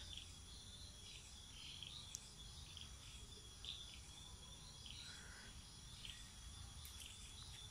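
Near silence with faint night insects: short high chirps about once a second over a steady thin high trill, typical of crickets.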